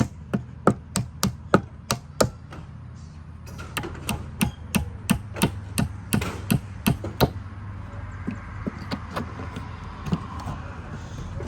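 Hammer blows on a nail in a wooden board, knocking out a bent nail. A quick run of about three strikes a second, a brief pause, then a second run; after about seven seconds only a few light taps.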